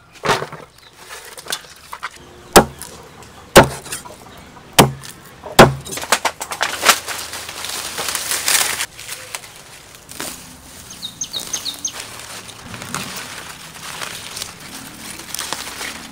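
Several loud, sharp thumps about a second apart in the first six seconds, then rustling leaves and snapping stems as vegetable greens are picked by hand. A few short bird chirps come about two-thirds of the way through.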